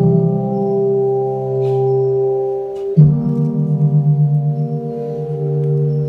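Slow music for the routine: deep, ringing sustained notes, with a new one struck about every three seconds and a wavering pulse in the ring.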